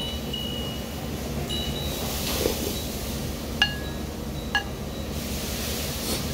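Ceramic soup spoon clinking against a porcelain ramen bowl, two sharp ringing clinks about a second apart, over a steady low hum.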